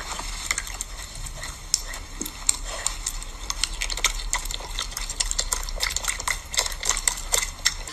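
Piglet smacking and chewing with its mouth: a quick, irregular run of sharp clicks.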